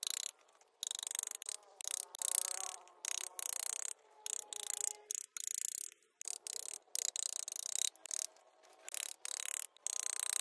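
A hand tool scraping wood in quick back-and-forth strokes, about two a second, each a short rasping hiss. It pauses for about a second midway, then picks up again.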